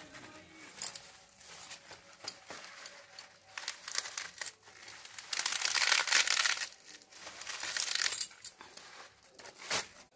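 Crackling rustle of freshly pulled radish leaves and stalks being handled and cut, with scattered sharp clicks; it is loudest in a dense burst about halfway through.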